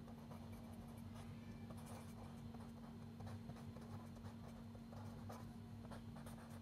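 Felt-tip pen writing on paper: faint scratching strokes as words are written out by hand, over a low steady hum.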